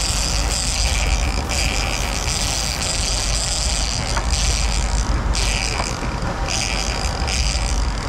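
Boat engine running with a steady low rumble, while a fishing reel with a fish on gives a high-pitched buzz that starts and stops in several stretches of one to two seconds.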